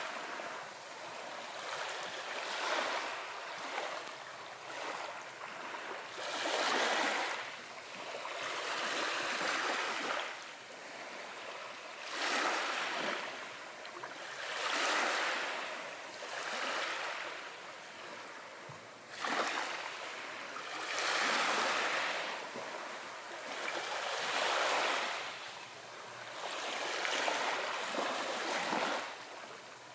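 Ocean waves washing in one after another. Each swell of rushing water rises and falls away every two seconds or so.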